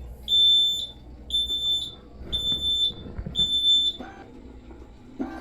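An electronic beeper sounding four high, steady beeps about once a second, each about half a second long, then stopping.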